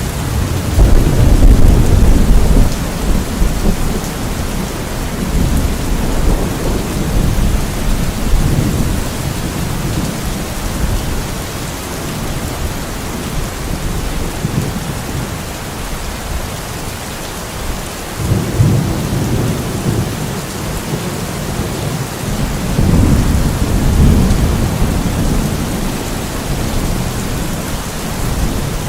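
Steady rain falling, with low rumbles of thunder swelling up several times, the loudest near the start.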